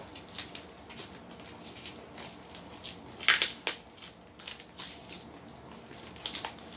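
A cardboard package being opened by hand: packing tape ripped off in irregular crackling tears, with rustling of the cardboard, the loudest rip about three seconds in.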